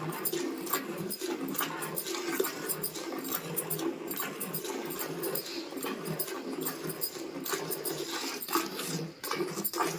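Cow being milked by hand: jets of milk squirting into a pail in a quick, steady rhythm.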